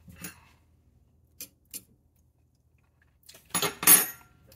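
A person tasting mashed potatoes: a few faint clicks, then a short spell of lip smacking and chewing near the end, the loudest sound here.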